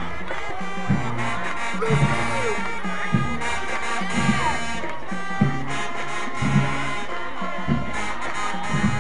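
Marching band playing: brass with strong low horns over drums, with a heavy accent about once a second.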